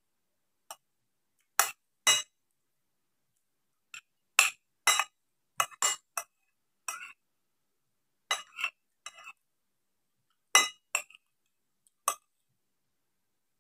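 Brittle, glassy crunches of fried banana-leaf chips being chewed: about twenty short sharp cracks in irregular clusters.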